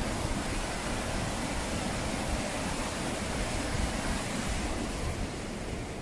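Ryūzu Falls, a cascade of water rushing steadily over rocks, heard as an even hiss. It grows a little fainter about five seconds in.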